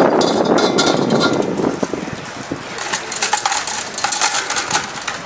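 Rushing water from the hose that dies away in the first couple of seconds, then a run of metallic clinks and knocks as the brewing gear is handled.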